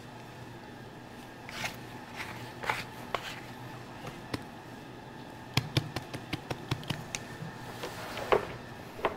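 Dough being divided by hand on a work bench: scattered soft taps and scrapes, then a quick run of sharp clicks and taps about five and a half seconds in, over a low steady room hum.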